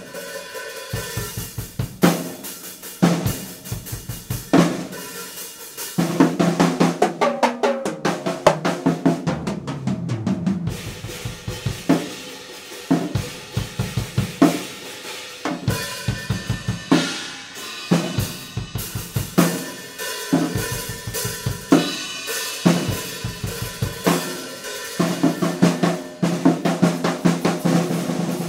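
DW drum kit with Zildjian cymbals played live: snare, bass drum, hi-hats and cymbals driving a steady beat, broken up by fast tom fills and rolls and accented crashes.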